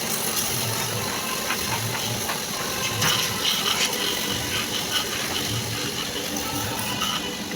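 Steady workshop machine noise with a hissing, rattling texture and a faint low beat repeating under it.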